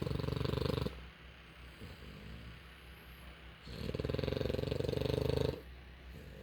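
Sleeping puppy snoring, each snore a rapid fluttering rattle. One snore ends about a second in, and a second one of nearly two seconds starts a little before four seconds in, with quiet breathing between.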